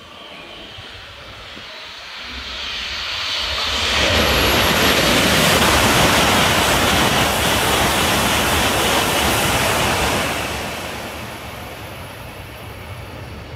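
E6+E5 coupled Shinkansen passing through the station at speed without stopping: a rushing roar of wheels and air that builds over about two seconds, stays loud for about six seconds as the train runs by the platform, then fades away.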